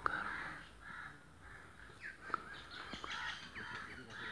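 Crows cawing over and over, about two calls a second, with a few sharp clicks in between.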